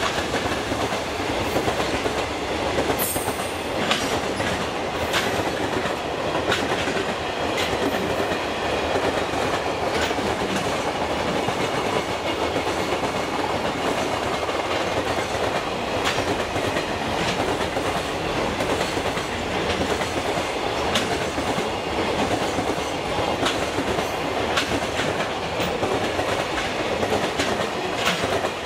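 Container freight train hauled by an EF210-300 electric locomotive passing at speed, a steady rumble of wagons with repeated clicks of wheels over rail joints. A brief high squeal comes about three seconds in.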